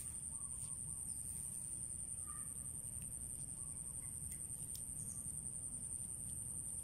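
Outdoor rural ambience: a steady high-pitched insect drone with a few faint bird calls now and then, over a low rumble.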